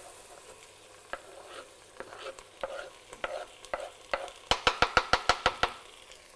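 Knife scraping chopped roasted capsicums off a bamboo cutting board into a stockpot, with scattered clicks, then a quick run of about nine sharp taps as the last pieces are knocked off the board's edge. Faint sizzling from the pot underneath.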